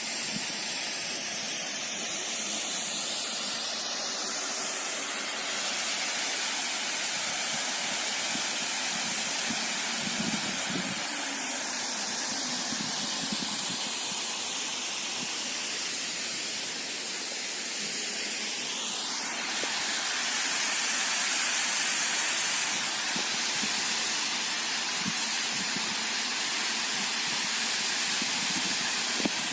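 Waterfall rushing: a steady, even hiss of falling water with no break.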